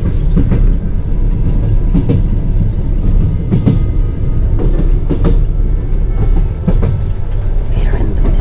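Sleeper train running, heard from inside the compartment: a steady heavy rumble of the wheels on the rails, with a clack or knock about every second from the rail joints and the carriage.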